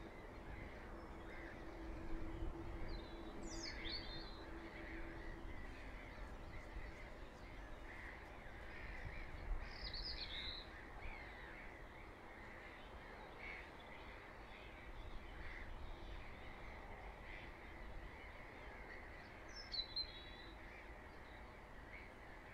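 Faint outdoor bird ambience: crow-family birds calling throughout, with three short, sharp, falling calls from a smaller bird about 3, 10 and 20 seconds in. A faint low hum runs under the first few seconds.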